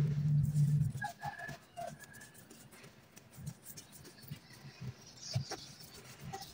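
Pigeon cooing low and steady in the first second, followed by a few short, higher bird chirps and scattered faint taps.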